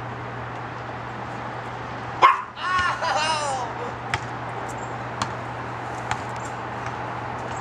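A sharp bang about two seconds in, as a basketball strikes the hoop's backboard and rim. A burst of loud calls follows, falling in pitch, then a few faint taps.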